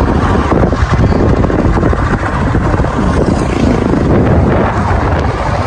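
Steady noise of a vehicle in motion: loud wind rumble on the microphone mixed with road and engine noise.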